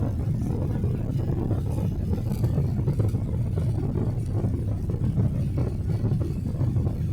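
Steady low rumble of a Boeing 777-300's engines and airflow heard from inside the passenger cabin.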